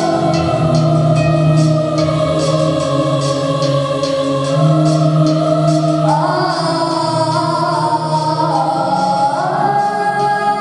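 Background music with long held choir-like voices stepping in pitch, over a steady light ticking beat.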